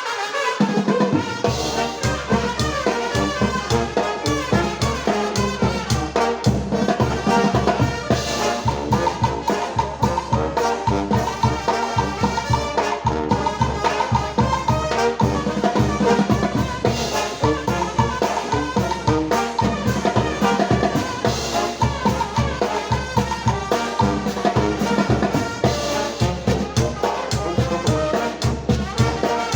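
Mexican banda brass band playing a cumbia: trumpets and trombones carry the tune over a steady low beat of bass and drums. The band comes in right at the start, and the lowest bass joins about a second and a half in.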